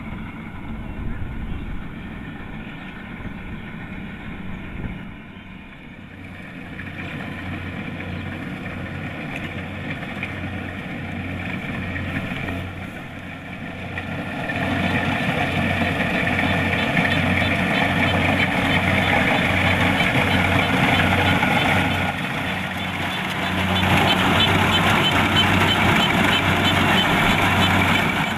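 Kubota DC-70 Plus rice combine harvester running in the field: a steady mechanical drone with a low, even throb. It grows louder about halfway through, dips briefly, then picks up again near the end.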